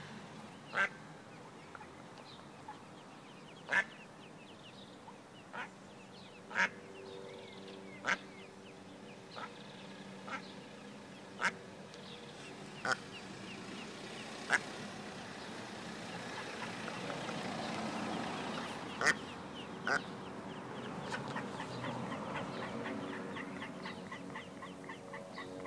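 Mother duck quacking: short single quacks, one every second or two, a hen's calls to her ducklings.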